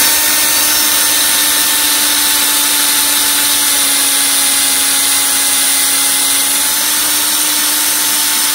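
Handheld electric drill running at a steady speed, its bit boring out an aircraft rivet in a thick aluminium angle; a steady, even whine with no change in pitch.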